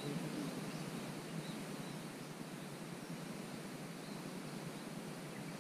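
Outdoor ambience: a steady, even hiss of background noise with a few faint, brief bird chirps.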